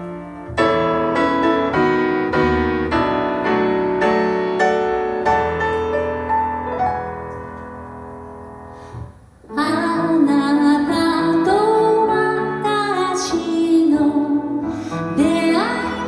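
Grand piano playing a slow introduction of struck chords that die away into a brief pause about nine seconds in; then a woman starts singing into a microphone with the piano accompanying her.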